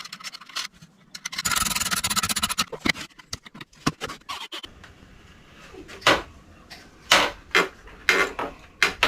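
Wood being worked by hand: a dense scrape for about a second, then a scattering of sharp knocks and clicks near the end.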